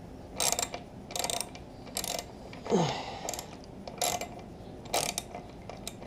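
Hand socket ratchet clicking in short bursts, about eight strokes spaced most of a second apart, as a bolt on a motorcycle's coolant reservoir is turned. A short falling squeak comes near the middle.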